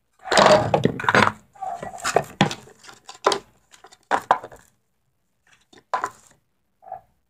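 Hands knocking and rubbing right against the microphone: a quick run of clatters and rustles, loudest in the first second and a half, then scattered knocks.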